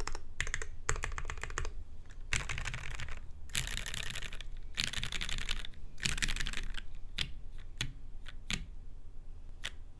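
Typing on a Perry MC65 mechanical keyboard: a top-mount case with an aluminium plate, lubed Gateron KS3 Yellow linear switches and GMK KA1953 keycaps. Quick runs of keystrokes come in bursts, then thin to a few single key presses in the last three seconds.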